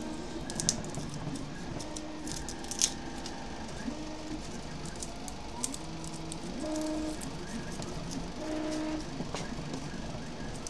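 Dry papery garlic skins crackling and snapping as cloves are twisted between the fingers, with scattered sharp clicks, the loudest about a second in and near three seconds. Faint pitched background tones run underneath.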